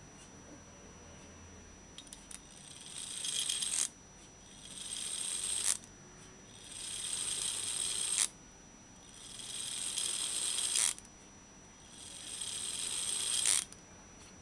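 Brass clock movement's freshly refitted gear train set running five times: each run is a fine whirring that grows louder for one to two seconds and stops with a sharp click. The train runs freely and locks cleanly, the check that the refit worked.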